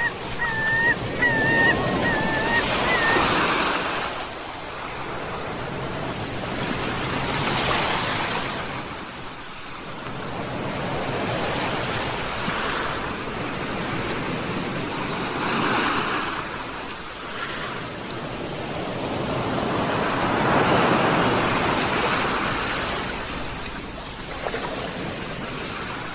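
Sea waves breaking and washing up a shore in slow surges that swell and fall back every several seconds. Seagulls give a string of short mewing calls in the first few seconds.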